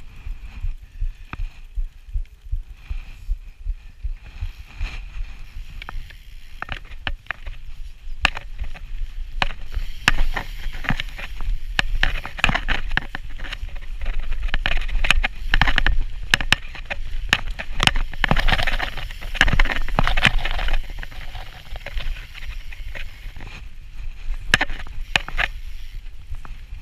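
Mountain bike ridden over a dirt forest trail: tyre noise and a low rumble with many quick clicks and rattles from the bike, busier and louder over a stretch in the middle.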